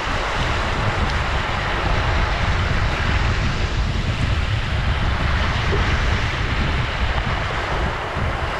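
Ocean surf washing steadily, a continuous roar of waves with a deep rumble and no distinct single breakers.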